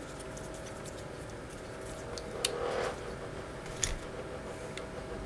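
A Phillips screwdriver backing a small screw out of a paintball marker's detent panel: a few light metal clicks and a short scrape, over a steady faint hum.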